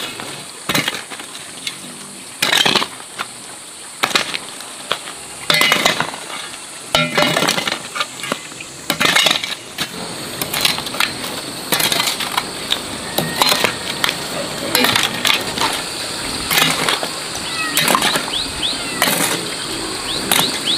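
Irregular sharp knocks and cracks, one every second or two, over a steady high hiss.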